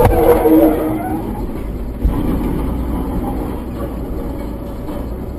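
Steady low road and engine rumble of a car, with a sharp knock right at the start and a brief steady tone over the first second.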